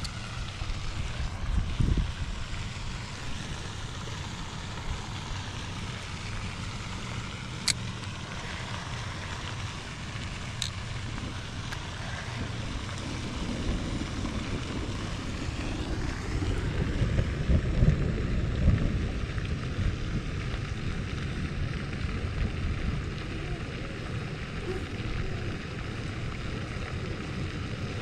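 Wind buffeting the microphone in an uneven rumble, gusting harder about two-thirds of the way through, with two short clicks in the middle.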